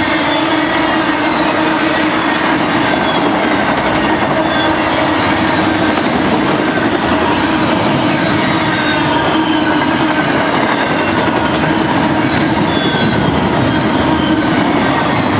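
Intermodal freight cars, trailer flatcars and double-stack well cars, rolling steadily past on the rails: continuous wheel-on-rail rolling noise with a steady low hum, and faint high whines that slide down in pitch.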